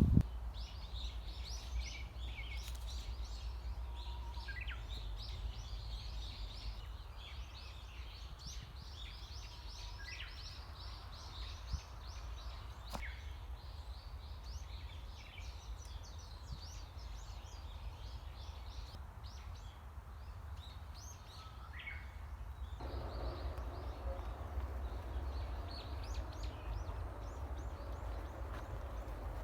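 Small forest birds chirping and calling, with many quick high notes and an occasional falling whistle, over a steady low rumble. A broader background hiss thickens about two-thirds of the way through.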